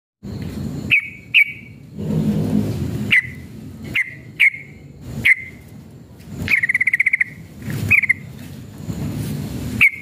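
Yellow-vented bulbul (trucukan) calling in short, sharp chirps, singly or in quick pairs, with one fast rattling trill about two-thirds of the way through.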